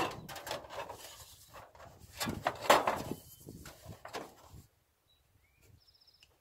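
Soffit panel being slid and pushed up into place under a barn eave: rubbing and scraping of the panel in its channel, with sharp knocks, loudest about two and a half seconds in, stopping about four and a half seconds in.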